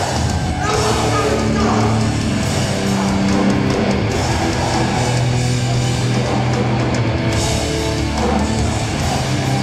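Hardcore punk band playing live: distorted electric guitars and drums, loud, with held chords that change every second or so.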